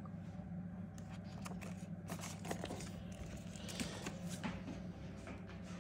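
Faint rustling and light clicks of paper and packaging being handled, over a steady low hum.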